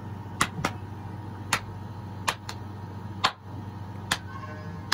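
Sharp, dry clicks at an uneven pace, mostly about one a second with a few closer pairs, over a steady low hum.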